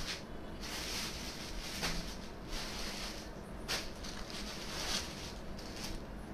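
Cloth rustling and handling noises in uneven bursts as garments are moved about, with a couple of sharper clicks, the clearest a little before four seconds in.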